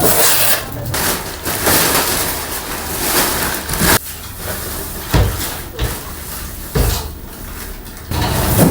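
Packaging being handled while a treadmill is unboxed: a few seconds of rough rustling and scraping, then three low thumps.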